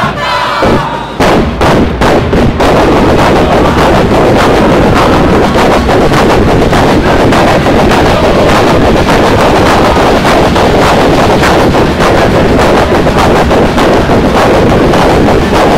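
Dense crowd of football supporters chanting, with a rapid, unbroken run of sharp hits. From about a second in it is so loud that the phone microphone overloads into distortion.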